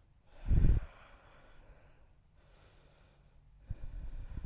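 A short, forceful exhale through the nose about half a second in, then quiet, then breathing with a low rumble in the last second or so.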